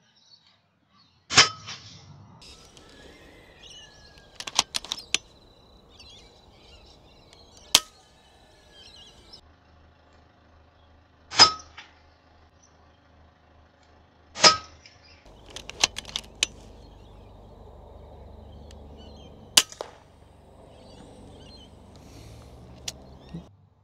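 Suppressed FX Impact M3 .22 PCP air rifle firing about five sharp shots several seconds apart, with quieter clicks and knocks between them.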